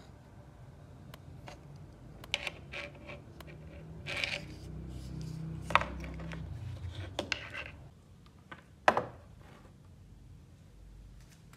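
Handling noise from a small plastic two-pin mains plug wired to a phone battery, moved about on a tabletop: rustling and a few sharp clicks and knocks, the loudest about nine seconds in.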